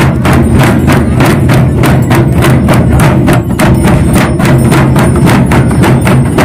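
Fast, steady festival drumming: sharp, knocking strikes at about five a second, loud and unbroken.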